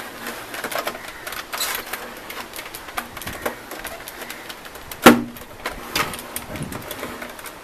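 Plastic top cover of an APC Back-UPS RS 600 being worked loose and slid off the unit: a string of small plastic clicks and scrapes, with one sharp knock about five seconds in.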